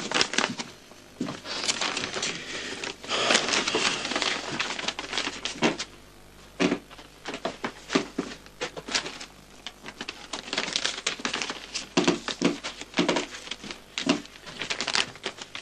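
Irregular light knocks, clicks and rustling of paper and movement in a small room, with no voices.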